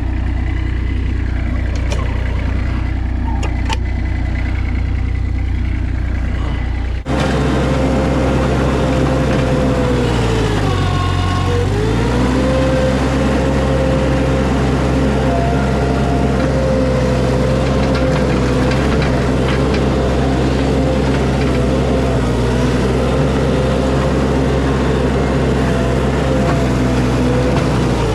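Mini skid steer engine running steadily. About seven seconds in, it jumps to a louder run with a steady whine over the engine. A few seconds later the pitch sags and recovers, as under a brief load.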